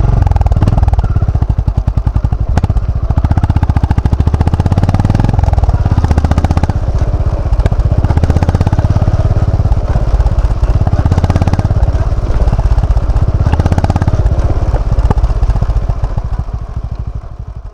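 Honda GB350S's air-cooled single-cylinder engine running with a steady, rapid low thump, fading out near the end.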